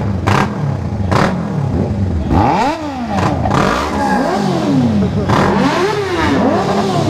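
Several motorcycle engines revving in repeated throttle blips, their pitch rising and falling again and again and overlapping. Two sharp cracks come in the first second or so.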